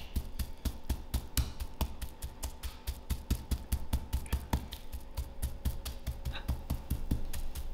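Stone pestle pounding a chicken breast wrapped in cling film on a wooden chopping board to flatten it: a quick, steady run of blows, several a second.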